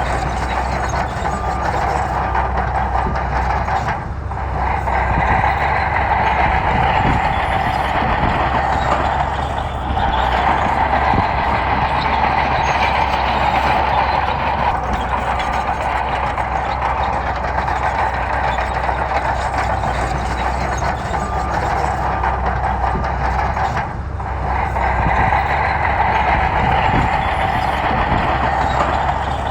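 Heavy diesel engine of an earthmoving machine running steadily under load, with a few brief dips in level.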